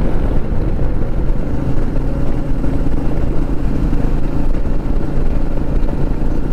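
Royal Enfield Meteor 350's single-cylinder engine running steadily while riding at cruising speed, heard under a dense, even rumble of wind noise.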